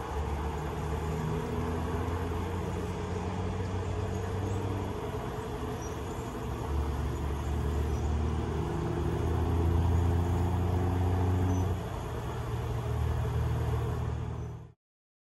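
A steady low rumbling hum, swelling and easing in stretches, that cuts off abruptly near the end.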